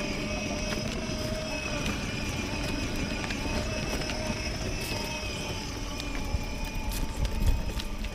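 Homcom children's battery-powered ride-on car driving over a rough bark-and-gravel path: a steady electric motor whine over the rumble of its wheels, with a few knocks from bumps about seven seconds in.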